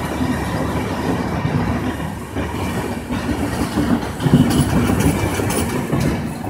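LHB passenger coaches of an Indian Railways Rajdhani Express rolling past close by: a steady rumble and rattle of wheels on rail. The rattle is loudest about four seconds in, with sharp clacks through to near the end.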